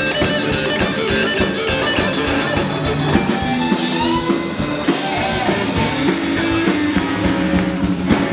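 A live blues-rock band playing, with electric guitar and hollow-body guitar over a drum kit, at a steady loud level.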